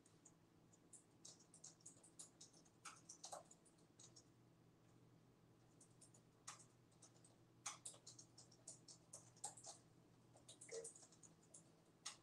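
Faint, irregular clicking and tapping of a computer keyboard and mouse, in small bursts, over a low steady hum.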